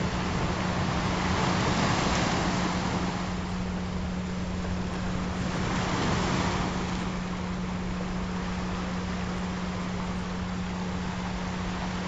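Recorded ocean surf, a steady wash of waves that swells twice, about two and six seconds in. Under it runs a steady low hum-like tone from the healing-frequency track.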